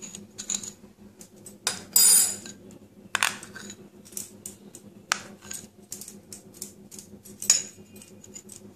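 Spoon clinking and scraping against a glass bowl while scooping out ghee: scattered sharp clinks, the loudest about two seconds in.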